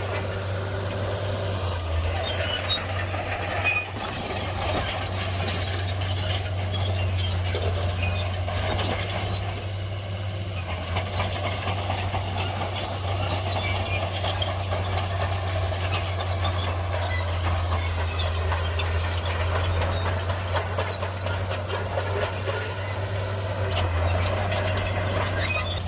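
Heavy bulldozer working: its diesel engine runs steadily under many scattered clanks and knocks from the steel tracks and the blade.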